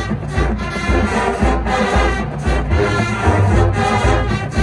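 Marching band playing live: brass section over a pulsing low bass line and a steady drumline beat.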